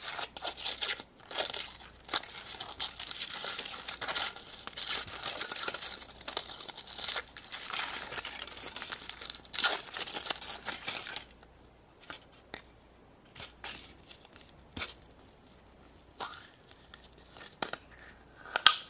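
A crinkly wrapper being torn open and crumpled by hand for about eleven seconds, then a few scattered small clicks and rustles.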